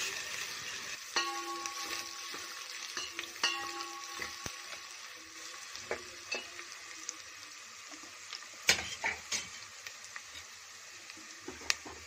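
Chopped onion and green chilli frying in hot oil in a steel pot, a steady sizzle, while a metal ladle stirs and clinks against the pot now and then, the first clink ringing briefly. A cluster of sharper ladle clinks comes about three-quarters of the way through.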